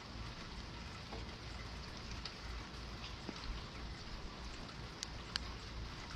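Steady rain falling, with scattered sharp drip ticks and a couple of louder drops about five seconds in.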